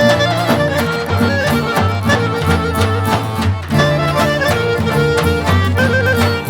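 Albanian folk dance music: violin and accordion play a quick, ornamented melody over a steady drum beat and bass.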